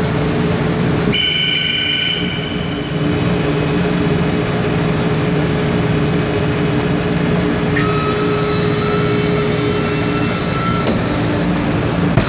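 Hydraulic dock leveller running as its steel platform moves: a loud, steady mechanical hum with a whine over it, and a higher squeal that comes and goes.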